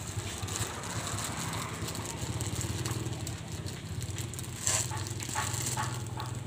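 Plastic pouch of dry cat food rustling and crinkling in a few short bursts near the end, over a steady low engine hum.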